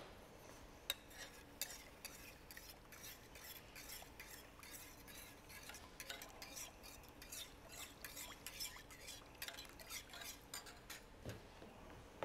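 Long metal spoon stirring a cream sauce in a stainless steel stockpot, with repeated faint scrapes and clinks against the pot's sides and bottom.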